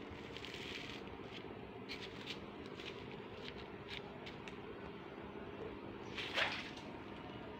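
Outdoor background: a steady low hum under scattered short, high chirps, the loudest about six seconds in.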